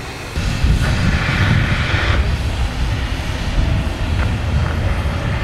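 Steam hissing from a standing steam locomotive over a steady low rumble. The hiss is loudest during the first couple of seconds.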